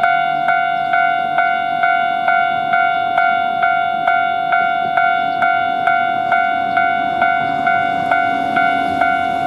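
Japanese railway level-crossing warning bell ringing, about two strikes a second in an even, unbroken rhythm over a continuous ringing tone.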